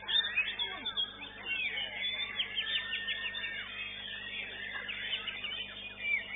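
White-rumped shamas (murai batu) singing in competition, several birds overlapping in a dense run of whistles, quick trills and sliding notes.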